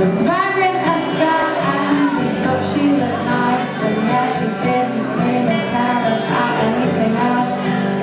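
Live pop performance: a woman singing into a microphone over instrumental accompaniment, heard from among the audience.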